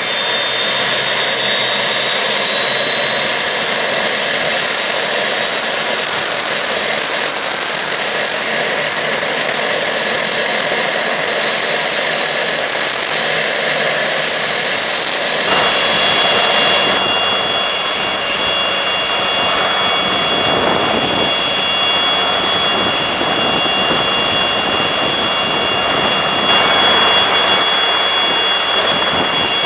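Alouette III helicopter's Turbomeca turboshaft engine starting and spooling up. Its high whine rises in pitch over the first few seconds, then settles to a steady loud whine as the engine runs up on the ground before lift-off.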